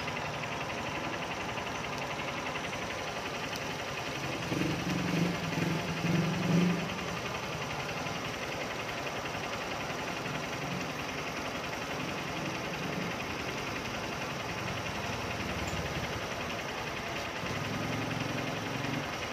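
Honda motorcycle engine idling steadily, growing louder and uneven for about two seconds around five seconds in.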